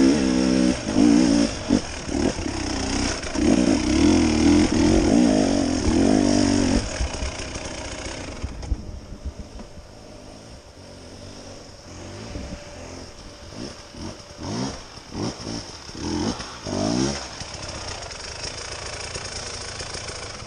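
Enduro dirt bike engine revving up and down on and off the throttle, then dropping to a quiet idle about eight seconds in. In the second half a second dirt bike's engine revs in a few rising bursts as it approaches.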